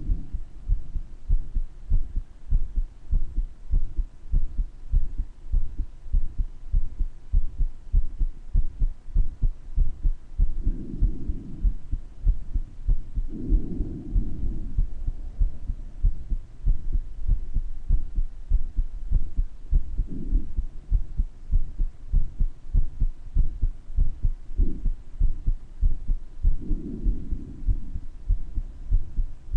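A person's heartbeat recorded at the chest, a steady run of low lub-dub beats that carry the owner's heart murmur. Soft breath sounds swell in and out over the beats a few times.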